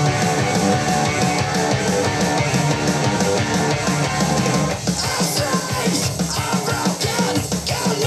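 Rock music with electric guitar playing through a 4th-generation Amazon Echo smart speaker at half volume, picked up by a microphone in the room; the beat becomes more prominent about halfway through.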